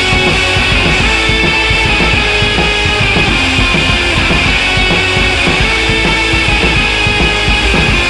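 Background rock music with electric guitar and a steady beat, no vocals.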